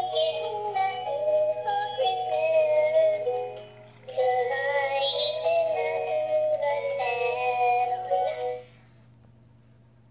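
Animated Christmas plush puppy toy singing a song in a synthesized voice, with a short break about four seconds in. The song stops near the end, leaving a faint low hum.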